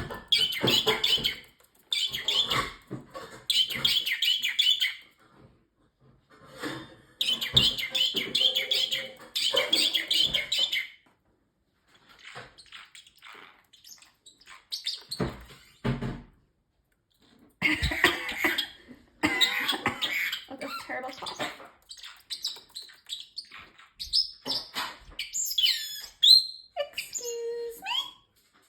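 Parrotlet chirping and chattering in repeated bouts with short pauses, then a few sliding whistled notes near the end.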